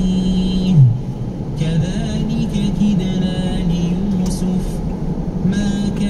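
A man's voice chanting an Arabic recitation in long held notes that slide in pitch, in the style of Quran recitation. Under it runs a steady low road hum.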